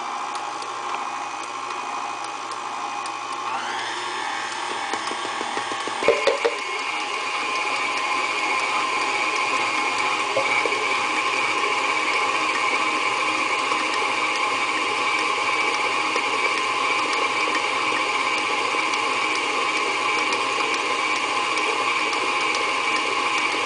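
KitchenAid Artisan stand mixer running with its wire whip through stiff cookie dough as flour is worked in: a steady motor whine with the whisk churning. The whine rises in pitch about four seconds in, there is a brief knock about two seconds later, and then it runs louder and steady.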